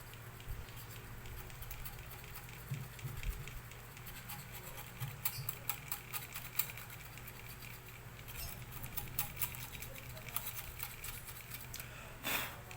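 Scattered light clicks and scratches of hand work on an opened laminator, picking at laminating film melted onto the heater, over a steady low hum. The clicks thicken in the second half, and a short rush of noise comes near the end.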